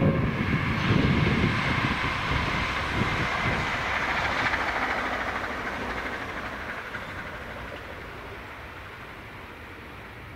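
Royal Scot class steam locomotive 46100 and its train passing, loud at first and then fading away steadily as the train runs off into the distance.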